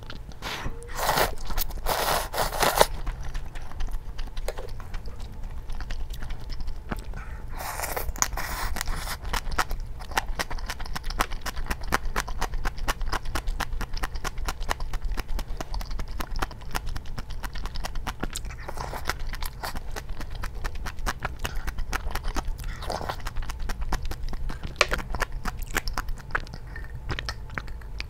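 A person eating spicy soft-tofu ramen and bibimbap. Noodles are slurped in a dense burst a second or two in and again about eight seconds in, then steady wet chewing with many small clicks.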